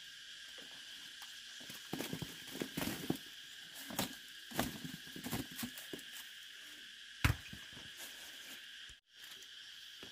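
Knobbly medicinal roots rustling and clattering as they are tipped out of a woven basket and handled on a sack, in a cluster of light knocks, then one sharp knock a few seconds later. Insects shrill steadily throughout.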